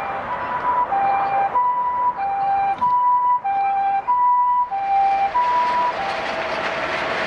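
Ambulance's two-tone hi-lo siren, alternating between a higher and a lower note about every half second. It grows loudest in the middle and fades near the end as a rushing traffic-like noise rises.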